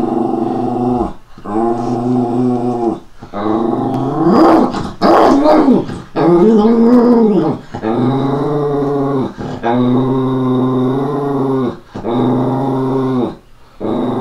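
Dog growling at a cat seen outside the window, in a run of long low growls one after another with short breaks between them. Around the middle the growl breaks into a higher whine that rises and falls.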